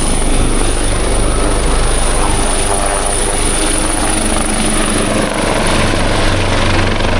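Helicopter nearby, a steady loud rotor and engine drone with a thin high whine over it.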